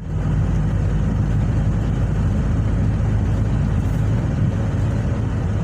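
Heavy truck driving along a highway: a steady low engine drone mixed with road noise.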